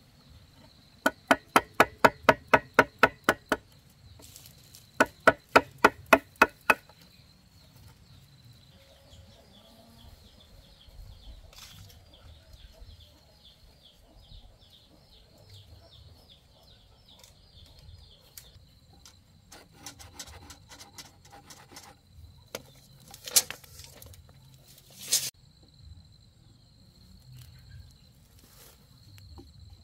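Rapid strikes on wood, about five a second, in two runs in the first seven seconds, then two single sharp knocks near the end. A steady high insect buzz runs underneath.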